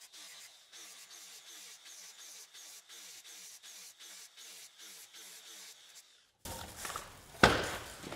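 Regular rasping strokes, about three a second, of the tin body solder on a car's wheel-arch seam being scraped down. About a second and a half before the end the background changes and a single sharp click sounds.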